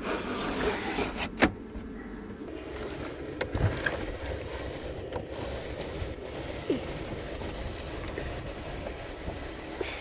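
Pleated blind on a camper van's roof skylight being pulled open, with a few sharp clicks about a second and a half in, then a knock as the acrylic roof hatch is pushed up on its stay arm. After that a steady rushing noise of outside air comes through the open hatch, with a few small ticks.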